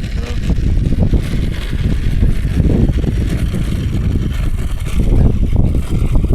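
Strong wind buffeting the microphone: a loud, uneven low rumble that swells and eases.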